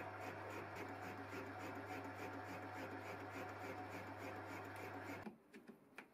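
Manual lathe running steadily, its boring head spinning in the three-jaw chuck while it bores a hole in the tailstock turret to final size; a steady hum with a light hiss. It cuts off abruptly about five seconds in, followed by a couple of faint clicks.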